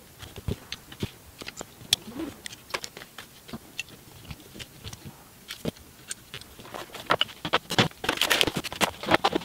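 Scattered small clicks and taps of a screwdriver and metal alternator parts being handled on a workbench during reassembly. Near the end the taps come thicker and louder, with a crinkling as a padded paper envelope is handled.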